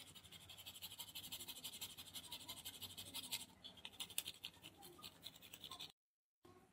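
Boiled potato rubbed rapidly back and forth over a flat metal hand grater: a faint, fast rasping scrape that stops about six seconds in.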